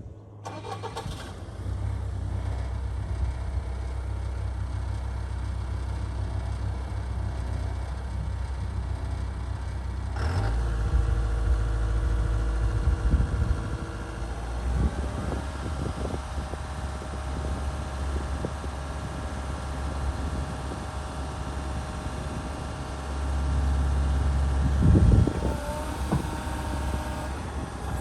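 Doosan DX140LCR-5 excavator's diesel engine starting and then running steadily. About ten seconds in it runs up to a higher speed, a steady whine joins from about fifteen seconds, and there are a few knocks near the end.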